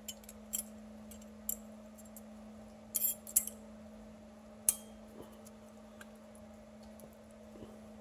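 Light metallic clicks and clinks, scattered and brief, with a small cluster about three seconds in and the sharpest one near the middle, as new steel brake pad hardware clips are handled and fitted on a rear disc brake caliper bracket. A steady low hum runs underneath.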